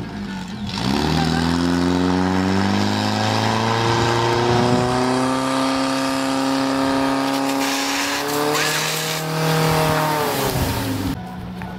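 A firesport motor pump's engine revs up sharply from idle about a second in and is held at high revs for about nine seconds. Near the end it falls back to idle.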